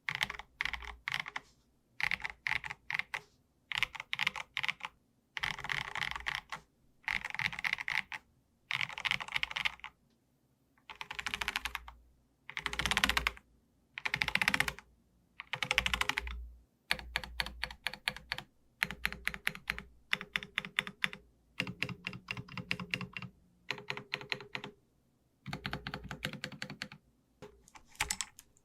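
Typing on an Akko MG108B full-size mechanical keyboard with Akko V3 Piano Pro switches. The keystrokes come in short, quick runs of about a second each, with brief silent gaps between them.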